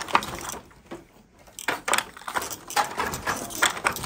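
Wooden hand loom clacking as the weaver throws the shuttle and knocks the beater against the weft: a run of irregular sharp clacks and knocks, with a lull of about a second shortly after the start.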